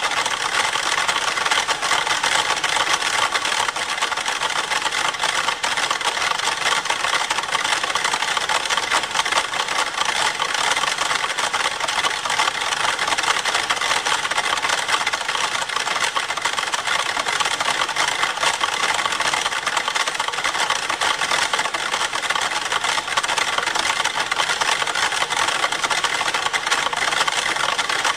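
About a hundred wind-up pyramid metronomes ticking at once at different tempos, merging into a dense, even clatter of ticks.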